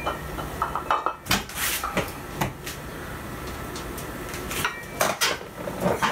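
Plate-loaded iron dumbbells clinking and knocking as they are handled and lifted: scattered sharp metal clicks, with a cluster of clinks near the end as the weights are swung up over the chest.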